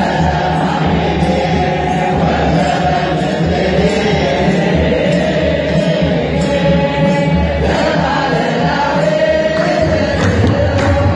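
A large group of men singing an Orthodox Tewahedo church chant together, with hand clapping keeping a steady beat about two a second.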